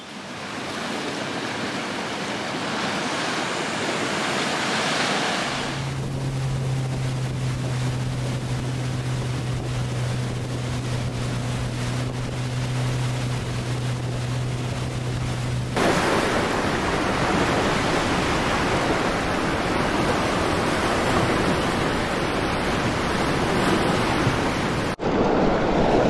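Steady rushing of water and wind. From about six seconds in to about sixteen, an outboard motor drones at a steady low pitch under the rush. After that, the louder roar of fast white-water rapids takes over.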